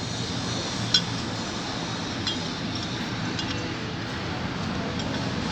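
Metal clutch parts of a Honda CD 70 engine clinking as they are handled and fitted: one sharp clink about a second in, then a few light ticks, over steady background noise.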